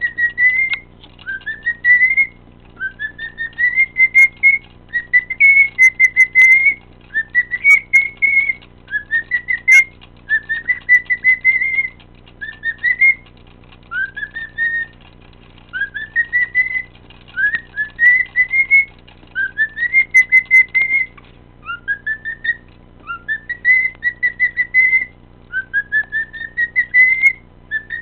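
Cockatiel whistling: a long run of short whistled phrases, each sliding up in pitch and then holding its note, about one every second and a half, with a few faint clicks between.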